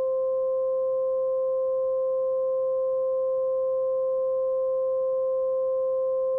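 Synth One software synthesizer holding one steady, unchanging tone with a fainter tone an octave above it. It is a synthesized imitation of a Federal Signal 2001-130 DC siren's steady alert signal.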